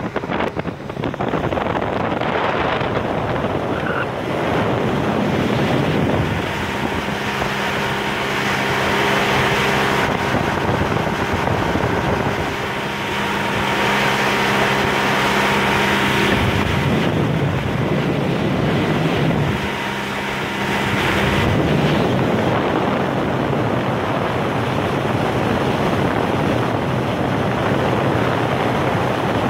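Wind rushing over the microphone and water noise from a small motorboat under way, with the boat's engine humming at a steady pitch that is clearest through the middle stretch.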